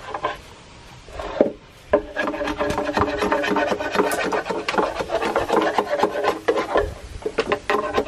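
Rapid, repeated rasping of a hand tool working wood, starting about two seconds in after a quieter stretch.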